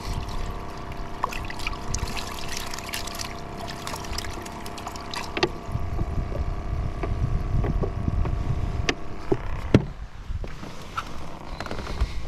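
Kayak's electric motor humming steadily under way at trolling speed, then cutting off about ten seconds in as the boat reaches the spot. Wind rumbles on the microphone throughout, with a few sharp knocks against the hull or gear.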